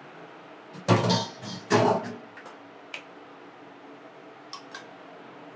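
Two loud clattering knocks a little under a second apart, from metal cookware being set down and handled, followed by a few light clicks.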